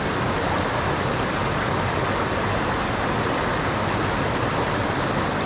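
Mountain stream water rushing steadily over rocks: a constant, even hiss of flowing water.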